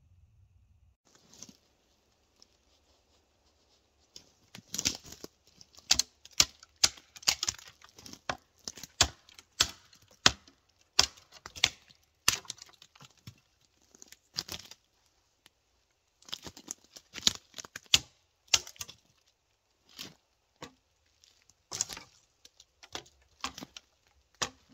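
Machete blade working through wood: a run of sharp knocks and cracks, roughly one or two a second, starting about four seconds in, with a short pause past the middle.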